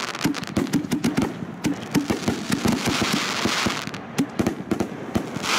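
A lit firework crackling and hissing, with a rapid, irregular string of sharp pops and spells of hissing.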